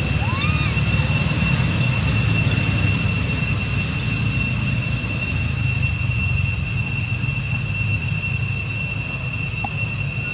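Steady high-pitched insect drone over a loud, even low rumble, with one short rising call about half a second in.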